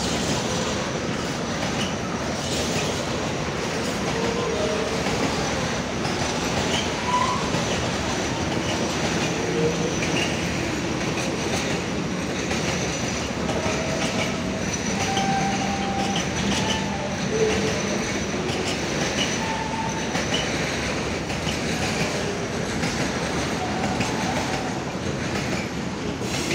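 Long container freight train rolling steadily past, its wagon wheels running over the rails with a continuous clatter and short faint wheel squeals here and there.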